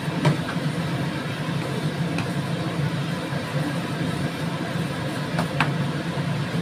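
Glass noodles and vegetables being stir-fried in a frying pan with a wooden spatula: a few clicks and scrapes of the spatula against the pan, over faint sizzling and a steady low hum.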